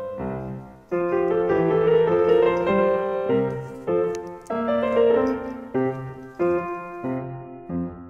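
Piano music playing a gentle tune, its notes and chords changing every half second or so.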